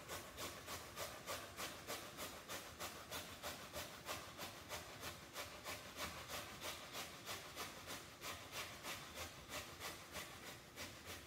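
Peeled raw potato being rubbed up and down a metal box grater: even rasping strokes, about three a second, that stop abruptly near the end.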